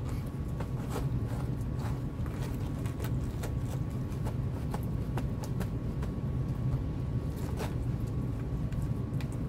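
Steady low rumble of outdoor background noise with scattered faint clicks and crackles and a faint steady hum.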